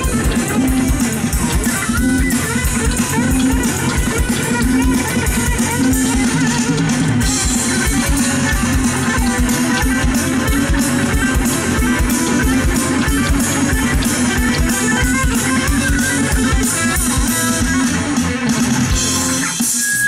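Funk fusion band playing live: electric guitar over bass guitar and a drum kit keeping a steady beat.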